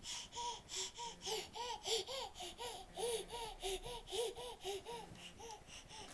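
A baby laughing and babbling in a quick string of short, high-pitched giggles, about three or four a second, that stops near the end.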